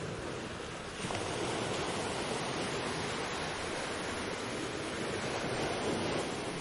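Sea waves washing onto a beach, a steady surf rush that swells up about a second in as a wave comes in.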